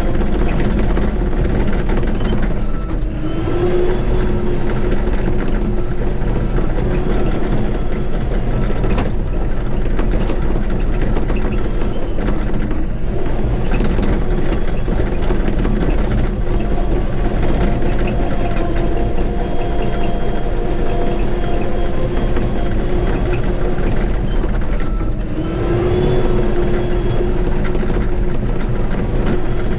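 Shantui bulldozer's diesel engine running steadily under load while pushing dirt. Its pitch sags and then climbs back twice, about three seconds in and again near the end.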